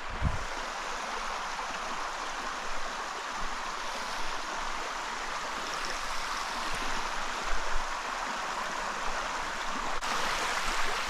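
Small mountain stream flowing over rocks: a steady, even rush of water that gets a little louder near the end.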